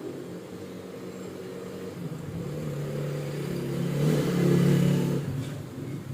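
A motor vehicle's engine passing by: it grows louder to a peak about four to five seconds in, then fades.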